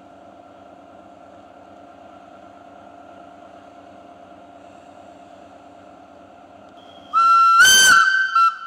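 Swiss Ae 4/7 electric locomotive standing with a steady electrical hum. About seven seconds in, its whistle sounds a loud blast of about a second and a half, sliding up in pitch as it starts, followed by a short second toot.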